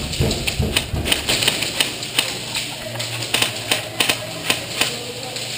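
Airsoft guns firing: an irregular series of sharp clicking cracks, a few a second.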